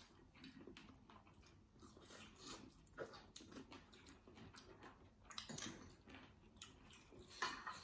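Faint chewing and mouth sounds of people eating, with scattered soft clicks. A few louder clicks stand out, the strongest near the end.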